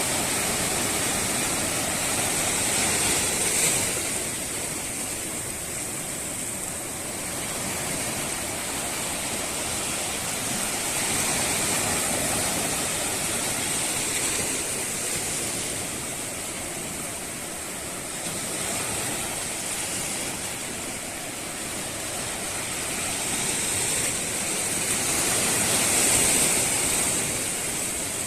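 Rushing water: a steady noise with a bright hiss, swelling and easing slowly every several seconds.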